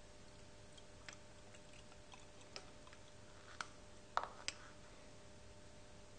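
Quiet room with a faint steady hum and five or six small, sharp clicks and taps, the loudest a little over four seconds in: handling noises as the hoses and pump are made ready for priming with liquid.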